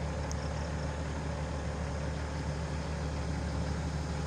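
Hitachi Zaxis 210F-5G excavator's diesel engine idling steadily.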